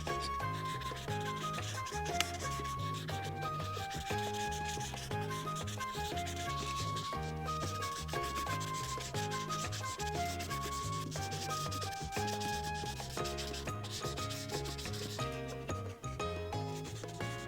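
Marker tip rubbing on coloring-book paper in quick back-and-forth strokes while a large area is filled in. Light background music with a repeating bass line plays under it.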